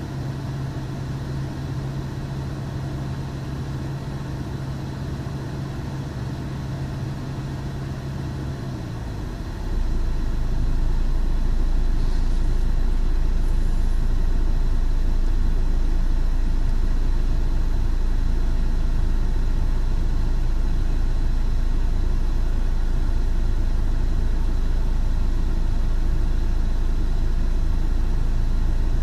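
Peugeot 607's 2.2 HDi four-cylinder common-rail diesel idling steadily, which the owner puts down to bad Bosch injectors. About nine and a half seconds in, the engine note drops deeper and gets louder, then holds steady.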